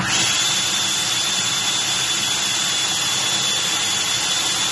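Countertop blender switched on, its motor starting abruptly and then running steadily at full speed with a thin high whine, grinding dry bread into fine crumbs.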